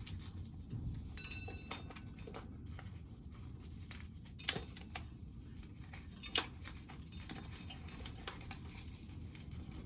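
Scattered light clicks and taps of small hard objects being handled, with a brief clink about a second in, over a low steady hum.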